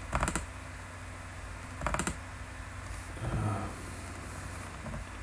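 A few sharp clicks from computer controls as a selection is made on screen: a quick pair at the start and another about two seconds in, with a softer sound around three and a half seconds. A low steady hum runs underneath.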